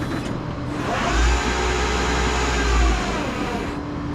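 A motor vehicle's engine rises in speed about a second in, holds for about two seconds, then drops away, over a steady low hum.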